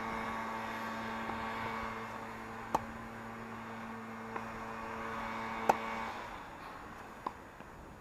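Tennis rally: a ball struck back and forth by rackets, sharp pops about every one and a half seconds, the loudest from the near player. Under it a steady hum, which cuts out about six seconds in.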